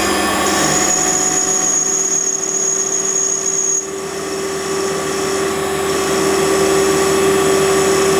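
Small metal lathe running, its motor and spindle giving a steady whine while the tool turns a shaft. A high thin whine sounds for the first few seconds.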